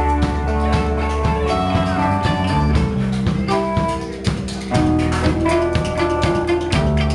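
A live band playing an instrumental passage without singing: guitar over bass and a drum kit. The sound thins out briefly about four seconds in, then comes back at full strength.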